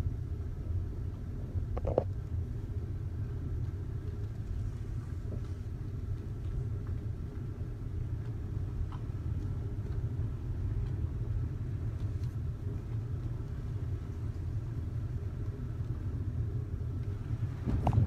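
Steady low outdoor rumble with no voices, and a faint click about two seconds in.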